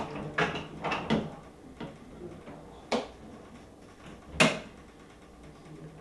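The wire dish rack of a Maytag portable dishwasher is slid back in with a few light clacks, then the dishwasher door shuts with one loud clunk about four and a half seconds in.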